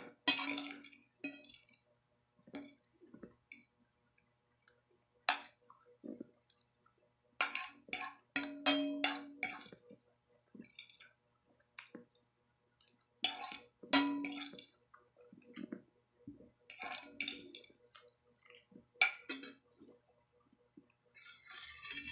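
A metal fork clinking and scraping against a plate in quick clusters every few seconds as the last spaghetti is scooped up, some strikes leaving a short ring from the plate. A short hiss near the end.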